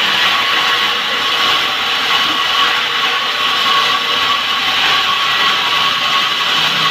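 Engine-driven saw running steadily at full speed while cutting through wood, without a break.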